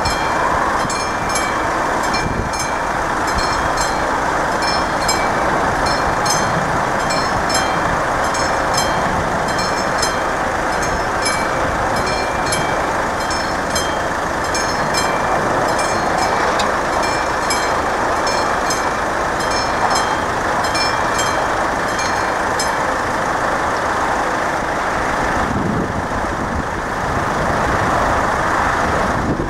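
Classic warning bell of an AŽD 71 level-crossing signal ringing in even strokes, about two a second, warning of an approaching train; it stops about six seconds before the end. A steady rushing noise runs underneath.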